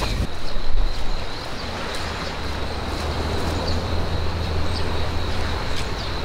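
Outdoor ambience: a steady rush of wind noise with a low hum under it for a few seconds, a thin steady high tone and a few faint short high chirps.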